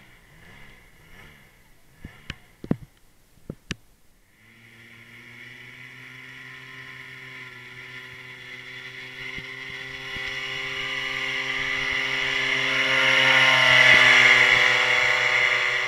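Paramotor trike's engine and propeller running at takeoff power, a steady droning tone that grows louder as the trike rolls up and passes close by, then starts to fade. A few sharp knocks come before the engine sound begins.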